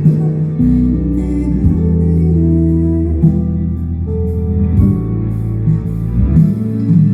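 Live band music with guitar over sustained low notes.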